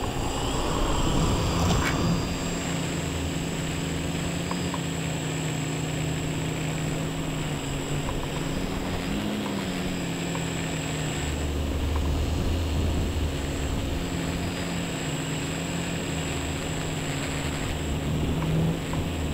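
A homebuilt electric quadcopter's motors and propellers spin up and run in flight, heard close up from a microphone on the craft. The hum is steady, with its pitch rising and falling briefly about halfway through as the throttle changes.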